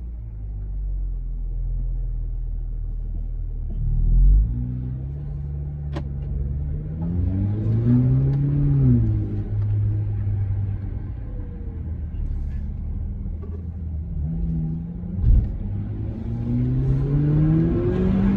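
Haval H6 GT's engine and exhaust running at a steady note, revving up and back down about halfway through and climbing again near the end. There is a deep surge about four seconds in and a sharp thump about fifteen seconds in.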